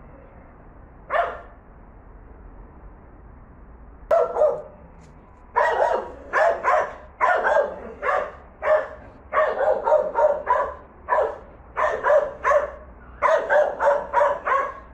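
Dog barking: a single bark about a second in, another around four seconds, then rapid runs of barks, several a second, through the rest.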